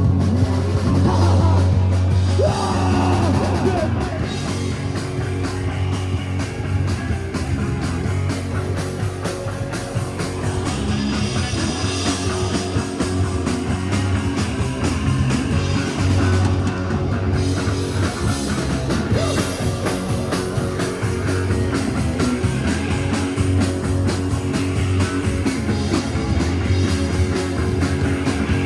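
A live punk rock band playing loud, with electric guitar, bass, drums and singing.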